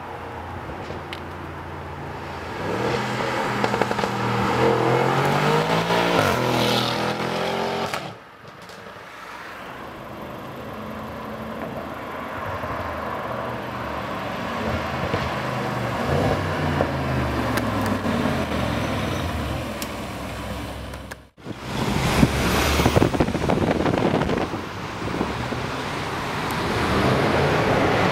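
Tuned Audi RS6's twin-turbo V8 through a Milltek exhaust, revving and accelerating hard, its pitch climbing and dropping with gear changes over several separate runs. A few sharp cracks come soon after the second run begins.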